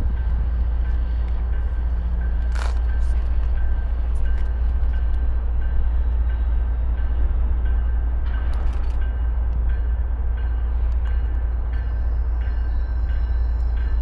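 Train running, a steady low rumble with scattered sharp clicks and knocks, the sharpest about two and a half seconds in.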